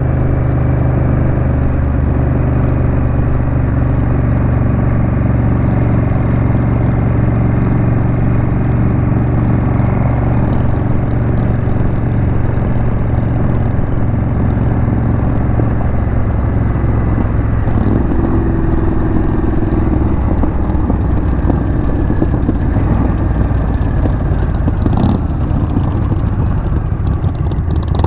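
Honda Rebel 1100 DCT motorcycle's parallel-twin engine running steadily while the bike is ridden along the road.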